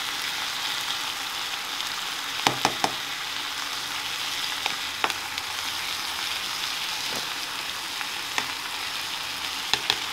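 Cooking oil sizzling steadily under rice in a nonstick pan, with a few sharp clicks of the spatula against the pan: a quick cluster about two and a half seconds in, one around five seconds, and two near the end.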